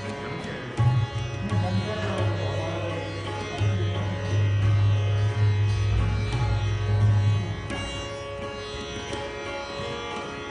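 Sitar and tabla playing together: a ringing sitar with its sympathetic strings over quick tabla strokes on a handmade tabla pair. Deep ringing notes from the bass drum (bayan) sound strongly from about a second in until about three-quarters of the way through, then ease off.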